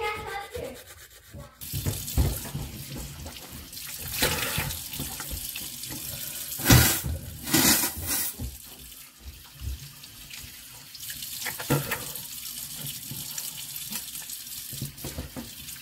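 Bathroom tap running into a sink, turned on about a second and a half in, with splashes as water is cupped by hand to rinse the mouth after toothbrushing.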